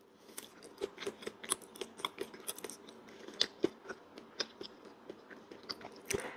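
Mouth sounds of eating soft, creamy durian flesh: biting and chewing, with a run of small, irregular wet clicks and smacks.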